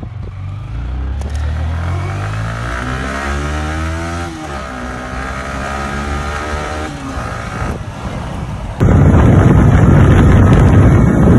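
Motorcycle engine accelerating, its pitch rising, dropping at a gear change about four seconds in, then climbing again before easing off. Near the end a sudden, louder rush of wind and road noise takes over.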